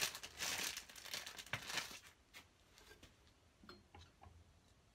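A small clear plastic bag crinkling as it is handled for about the first two seconds, then a few faint clicks of fingers working among the deck's parts.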